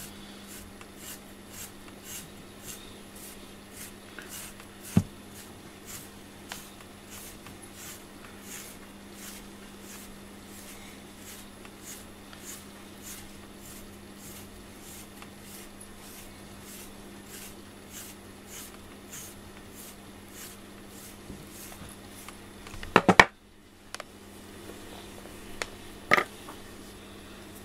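A FURminator deshedding tool raked through a cat's thick fur in short, repeated scratchy strokes, about two a second. A sharp tap comes about five seconds in, and a burst of loud knocks comes near the end.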